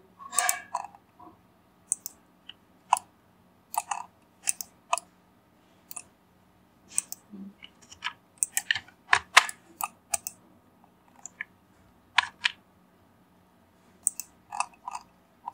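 Computer mouse and keyboard clicking irregularly, single clicks and quick clusters, over a faint steady hum.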